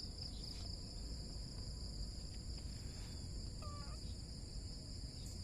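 Steady high-pitched chirring of crickets, with one faint, short kitten meow about three and a half seconds in.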